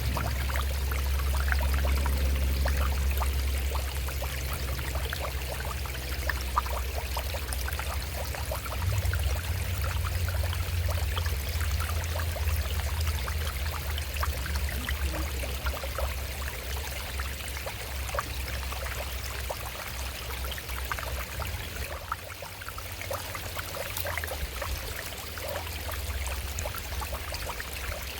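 Shallow stream running and splashing over rocks: a steady burble of water. Under it runs a low rumble that is heaviest at the start, swells again about nine seconds in, and fades later.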